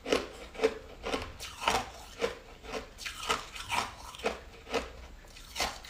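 Ice being crunched between the teeth: a run of sharp crunches, about two a second.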